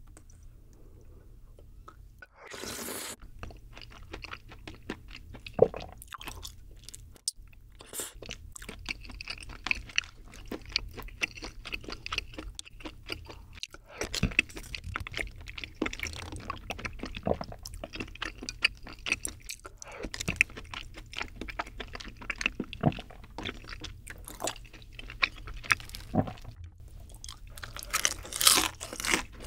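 Close-miked eating sounds of a person eating creamy bacon pasta: steady chewing with many small wet mouth clicks and smacks, and a few longer noisy slurps as noodles go in.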